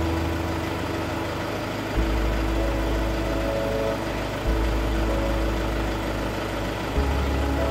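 Mahindra Yuvo 575 DI 4WD tractor's diesel engine idling steadily. Its low hum shifts abruptly, with a short click, three times.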